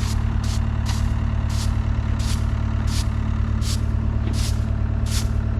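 A whisk broom sweeping sawdust off a freshly cut walnut slab, in quick even strokes about one and a half a second. An engine idles steadily underneath.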